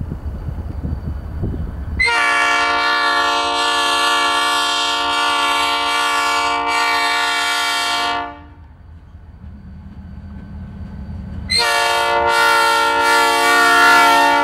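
Ferromex locomotive 3212's air horn sounding two long blasts: the first, about six seconds long, starts about two seconds in after a low rumble from the train, and the second starts near the end, with a low hum between them.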